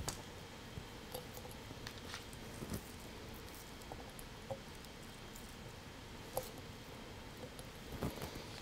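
Faint, scattered soft clicks and squishes of raw onion slices being pulled apart into rings and pushed into a glass canning jar of pickling liquid.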